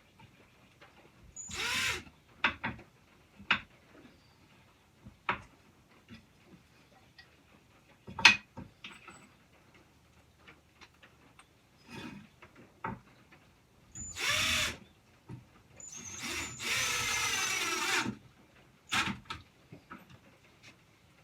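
Power drill driving screws into wood in a few short runs, the longest about a second and a half near the end, with sharp clicks and knocks between them.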